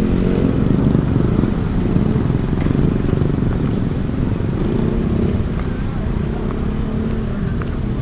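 Busy street ambience: motor vehicle and motorcycle engines running steadily, with people's voices mixed in.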